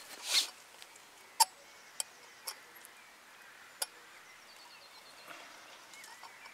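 Sharp metal clicks, about five of them spread over a few seconds and the loudest about a second and a half in, as the fold-out pot-support arms of an old camping gas stove are swung out and snapped into place, with a short rustle of handling near the start.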